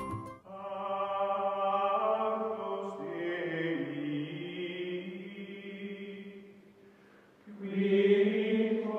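Outro music of slow, chant-like voices holding long sustained chords. It fades low about seven seconds in, then swells loudly again.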